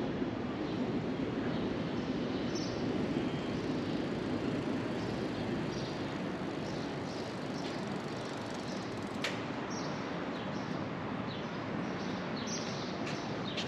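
Street ambience: a steady low rumble of distant city traffic, with small birds chirping now and then and a single sharp click about nine seconds in.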